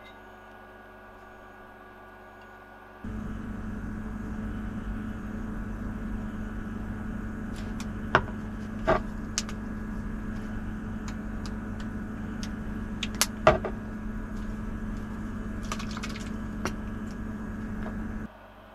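Steady machine hum with a low drone, under a handful of sharp clicks and knocks of bottles and caps being handled as chili oil and sauce are added to the dish. The hum starts abruptly about three seconds in and stops just as abruptly shortly before the end.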